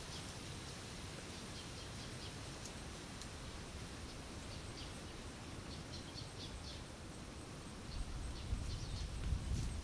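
Outdoor woodland ambience: a steady hiss with scattered short, faint bird chirps and a faint high ticking that repeats evenly in the second half. Low rumbling bumps come in near the end.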